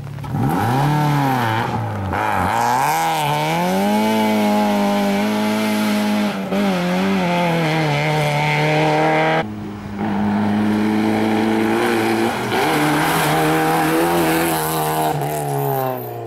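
Rally car engine at full throttle, its pitch climbing steeply and dropping back again and again as it revs through the gears and lifts off. The sound breaks off abruptly a few times.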